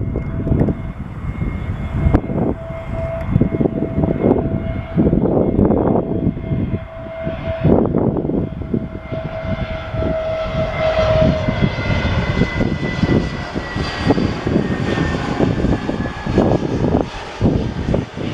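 Airbus A321 jet engines on approach: a steady whine that grows fuller and louder from about nine seconds in as the airliner passes, with one tone slowly falling in pitch. Heavy wind buffets the microphone throughout.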